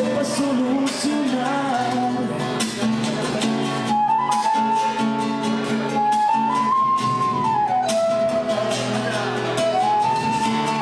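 Acoustic guitar and flute playing together, the flute carrying a held, gliding melody from about four seconds in over the guitar accompaniment.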